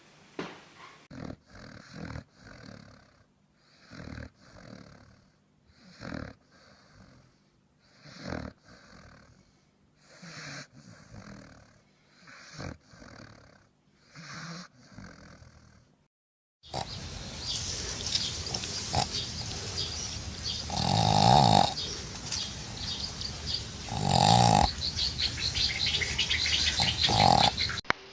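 French bulldogs snoring: a snore about every two seconds, each breath drawn in with a short loud snort. About two-thirds of the way through the sound breaks off, and louder snores follow roughly every three seconds over a steady hiss.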